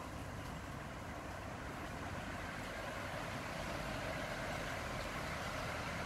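Heavy rain falling steadily, a continuous hiss with a low rumble underneath.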